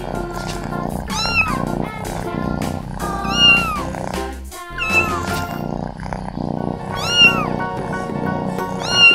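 Kitten mewing: about five short, high calls that rise and fall in pitch, spaced a second or two apart, over background music.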